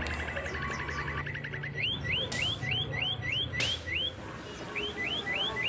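An electronic alarm siren running through its tones: a fast string of beeps, then rising whoops, about three a second, which pause briefly and start again. Kenikir leaves rustle faintly as they are handled.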